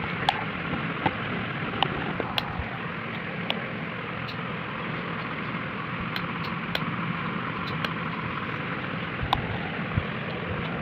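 Steady rushing background noise with scattered sharp clicks and taps, about a dozen, at irregular intervals.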